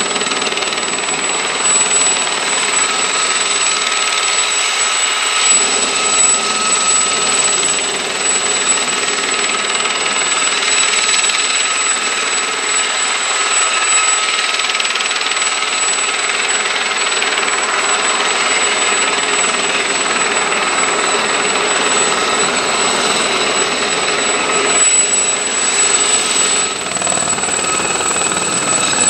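Aérospatiale Gazelle helicopter running on the ground with its turboshaft engine and rotors at speed: a steady high whine over the rotor noise. Near the end the sound changes as it lifts off into a hover.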